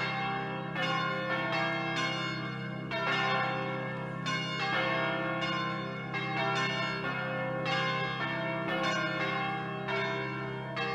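Church bells ringing in a continuing peal, about two strikes a second, each tone ringing on into the next, over a steady low hum.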